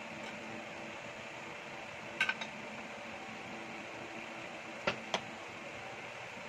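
Fork and dishes clinking on a table: a quick cluster of clinks about two seconds in and two more near five seconds, over a steady background hum.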